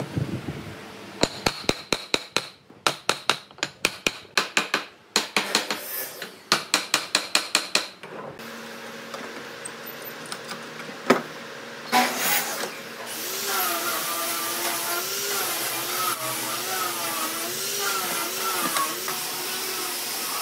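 Rapid hammer blows, about four a second in several quick runs with a ringing tone, then two single knocks. After that a power tool starts and runs steadily, its pitch rising and falling slightly.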